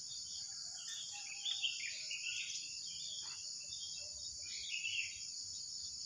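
A steady high insect drone from the undergrowth, with wild birds chirping and calling back and forth over it in short, scattered phrases.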